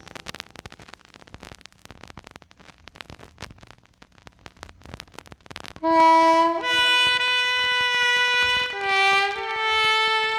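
Vinyl record crackle and clicks in the quiet groove between tracks. About six seconds in, the next track starts loudly with a held wind-instrument melody.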